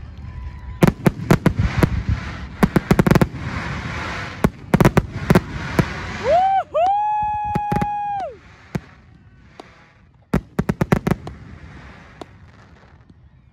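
Fireworks going off: clusters of sharp bangs and crackles over a hissing rush, then a whistling firework holding one steady shrill tone for about two seconds around the middle, then a final burst of bangs before it fades.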